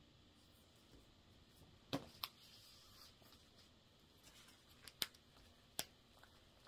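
Paper cross-stitch chart booklets being handled and shuffled: a few short, crisp rustles and taps in a quiet room, two close together about two seconds in and two more around five and six seconds.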